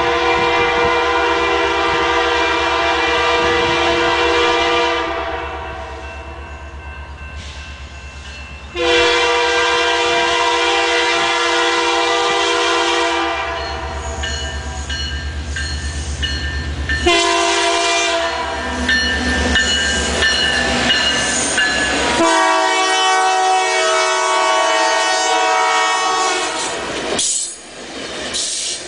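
Diesel locomotive's air horn sounding a chord of several notes in the grade-crossing signal: two long blasts, a short one, then a long one as the train approaches the crossing. Near the end the train's cars pass close by, their wheels rumbling and clacking on the rails.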